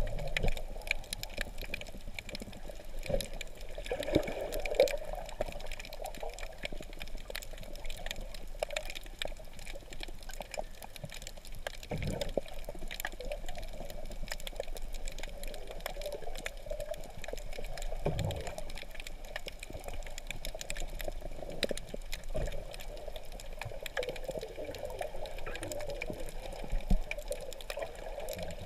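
Underwater ambience heard through a camera's waterproof housing: a steady muffled wash of moving water, full of fine crackling clicks, with a few dull low thumps.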